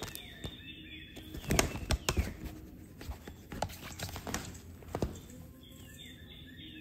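Cat scrabbling inside a fabric play tunnel: the tunnel fabric rustles irregularly, with a few sharp knocks as she pounces at a wand toy's string.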